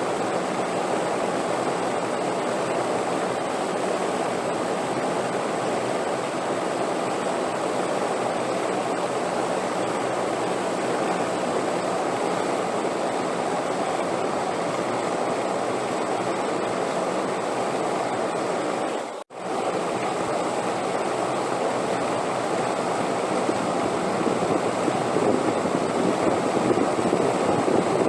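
Steady rushing wind, a continuous even noise that drops out for an instant about two-thirds of the way through and grows a little louder near the end.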